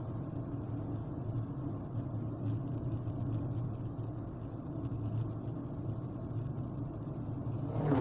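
Steady low rumble of road and engine noise inside a Kia Forte's cabin while it drives along a highway. Near the end an oncoming car passes with a brief whoosh.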